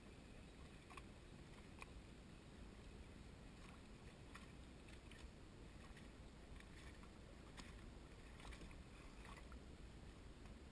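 Faint lapping of small waves against a dock, with scattered soft irregular clicks.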